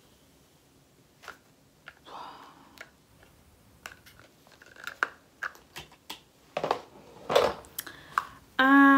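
Plastic makeup containers and packaging being handled: scattered clicks and rattles, sparse at first, then denser and louder after about four seconds. Just before the end, a loud, long, steady pitched sound begins.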